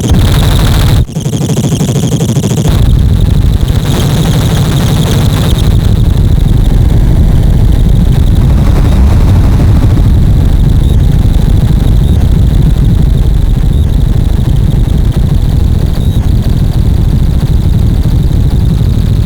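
Circuit-bent guitar pedal with EQD Life and DOD Carcosa clone circuits wired in a feedback loop, self-oscillating into a loud, dense low buzz with a steady high whine on top. It drops out for a moment about a second in and comes back with a heavier low end.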